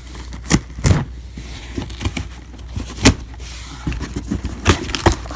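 Cardboard shipping box being handled: scrapes and crackles with about five sharp knocks, over a steady low hum.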